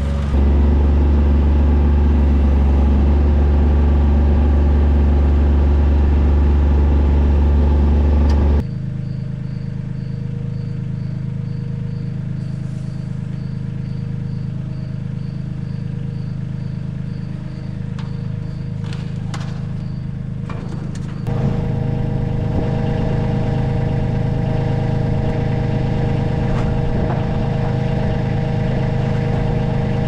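Farm tractor engine running with its front loader raised. It runs at a higher speed at first, drops abruptly to a lower speed about eight and a half seconds in, and picks up again about twenty-one seconds in. A faint high beep repeats about twice a second while it runs slower.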